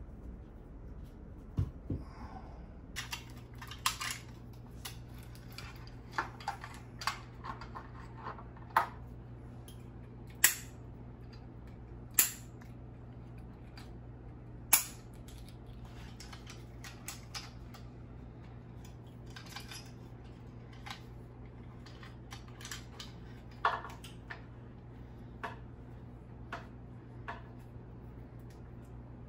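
Scattered short, sharp clicks and snaps of electrical cable and a small plastic junction box being handled and worked for an LED recessed light, over a steady low hum that sets in about three seconds in.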